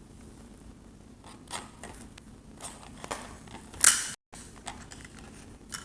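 Small handling clicks and rustles from hands working a hot-glued joystick knob onto its stick, a scattering of short sounds with the loudest sharp click just before four seconds in, followed by a brief cut to silence.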